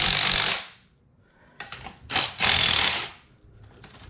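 Cordless impact gun hammering on the threaded rod of a coil-spring compressor, two short bursts about two seconds apart, backing the rod off to decompress the strut's coil spring.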